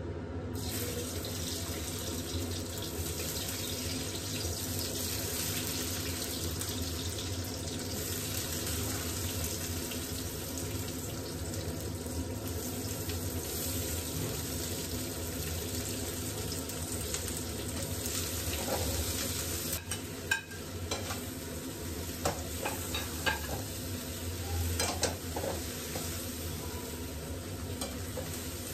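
Chopped onions and bell peppers sizzling steadily in hot oil in a wok. In the last third a spatula clicks and scrapes against the pan as the vegetables are stirred.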